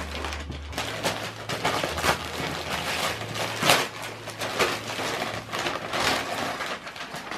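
Christmas wrapping paper crinkling and tearing as a present is unwrapped, with rustling from a large paper gift bag: a continuous run of crackling rustles with several sharper tears.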